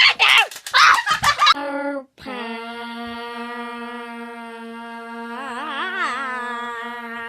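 A loud, wavering shout or wail from a child's voice for about a second and a half. It breaks off, and then a voice holds one long note at a steady pitch, wobbling briefly near the end.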